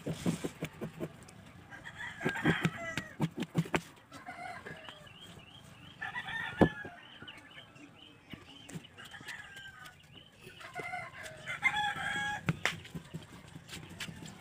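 Serrated kitchen knife chopping a hard brown sugar cake (sangkaka) on a plastic tray: repeated sharp taps and scrapes, the loudest about two-thirds of the way in. Several bursts of calls like chickens clucking come and go over the chopping.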